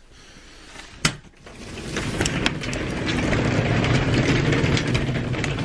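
A single click, then an electric garage door opener's motor starts and runs steadily, its drive rattling as the door opens.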